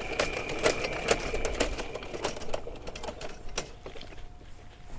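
Electric drain snake (sewer auger) in use: a steady motor whine that stops about two seconds in, over irregular clicking and clattering of the machine and its cable.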